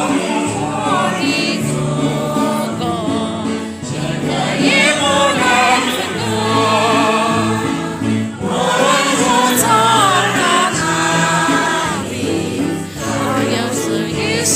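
A group of elderly people singing a patriotic song together in chorus, in phrases a few seconds long over a steady low accompaniment.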